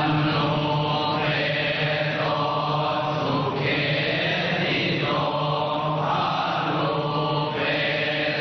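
A large group of men chanting Buddhist prayers in unison on one steady, low reciting pitch, the recitation running on with only slight shifts in the vowels.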